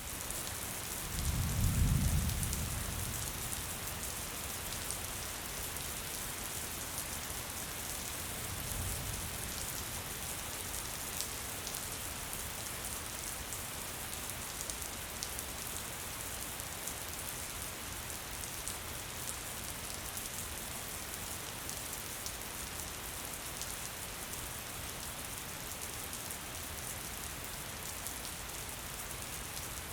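Gentle rain falling steadily, a continuous hiss of many small drops. A deep low rumble swells about a second in and fades by three seconds, and a fainter one comes near nine seconds.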